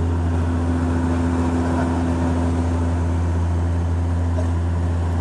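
Airliner cabin in flight: a steady drone of engines and airflow, with a strong low hum and a few steady tones above it.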